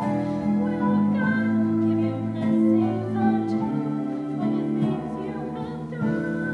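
A woman singing a solo melody with long held notes over instrumental accompaniment.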